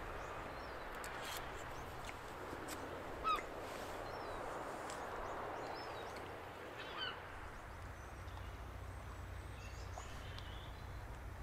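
Scattered short bird calls. A few brief chirps glide in pitch, the loudest about three seconds in and another about seven seconds in, over a soft steady hiss of gentle waves at the shore.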